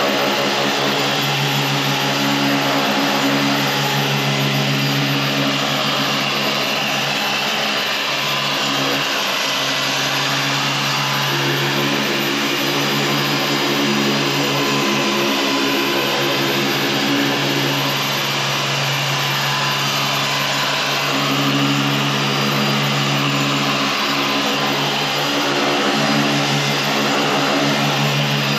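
Electric machine polisher running steadily while buffing out light swirl marks in the paint. Its motor hum wavers in strength as it works.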